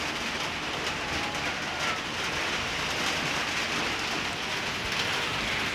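Steady rain falling, a constant even hiss of drops with a few faint individual drop taps.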